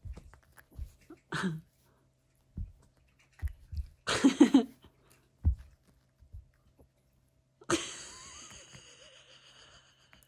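Pomeranian playing with a treat on a couch, thumping softly as it rolls and nudges the treat. Its short snorting and grunting breath sounds come now and then, the loudest about four seconds in, and a longer hissy breath follows near the end.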